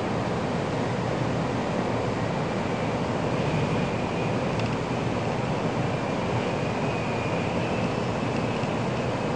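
Steady rushing cabin noise of a Tokaido Shinkansen train running at speed, heard from inside the passenger car. A faint thin whine joins in from about three seconds in.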